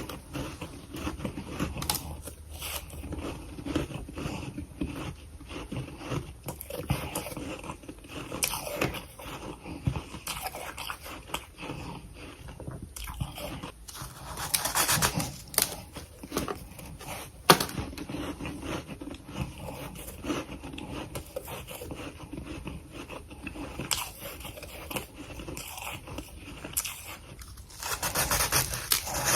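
Close-up mouth sounds of someone biting and chewing freezer frost: dense, irregular crunching of soft, powdery ice. It comes in louder bursts about halfway through and again near the end, with one sharp crack a little after the middle.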